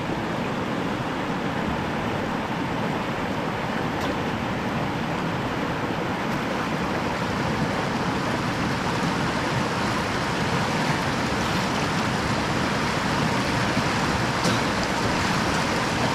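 Steady rush of flowing stream water breaking around rocks, with a faint click or two.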